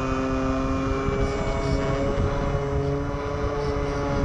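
RC Super Cub model plane's motor and propeller running steadily in flight, heard from the onboard camera: a droning whine of several pitches over heavy wind rush on the microphone.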